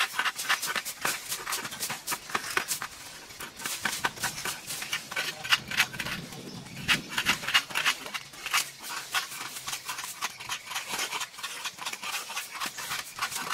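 A quick, irregular run of sharp clicks and snaps, several a second, with a duller low rustle about six to seven seconds in.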